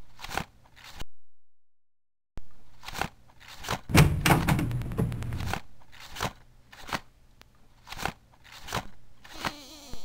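A string of sharp knocks and clatters, unevenly spaced, with a louder crackling, rustling noise about four seconds in lasting a second or so.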